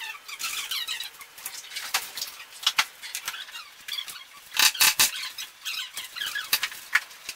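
Small metal fittings clicking and rattling as they are handled on a workbench, with scratchy rustling of a clear plastic parts bag. A few louder clicks come just past halfway.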